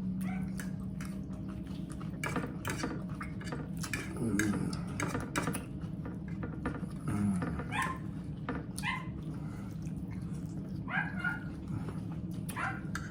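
A dog giving short, high whimpering cries several times, over sharp clicks of cutlery against dishes.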